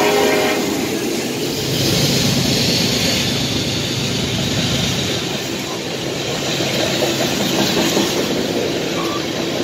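Freight train's covered hopper cars rolling past at track side: a steady rumble of steel wheels on the rails. The drone of the trailing diesel locomotive's engine fades out about half a second in.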